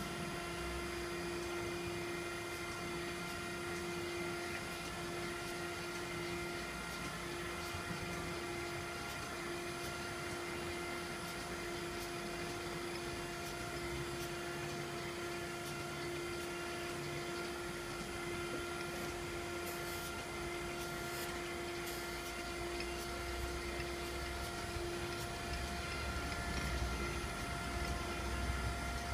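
1999 Okamoto PSG-52DX surface grinder running a test cut after maintenance. Its new, inverter-controlled spindle gives a steady whine as the table carries the workpiece back and forth under the grinding wheel. A low rumble grows louder near the end.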